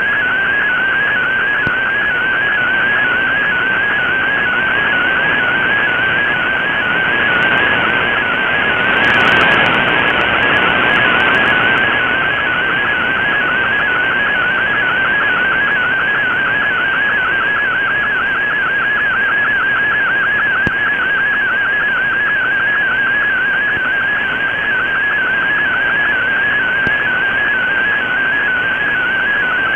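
Shortwave Radiogram digital picture transmission received on an Icom IC-R8600: a single high warbling tone that wavers rapidly in pitch as the image's pixel data is sent, over steady shortwave radio hiss. About nine seconds in, the hiss swells for a few seconds with a few faint crackles, from the signal fading.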